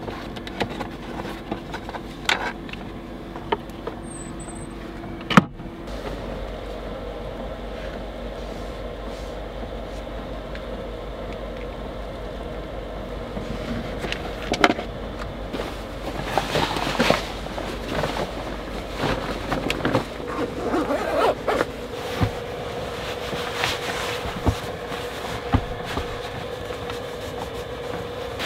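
A person handling gear and clothing in a cramped van interior: scattered small knocks, clicks and rustles, busier in the second half, over a steady low hum.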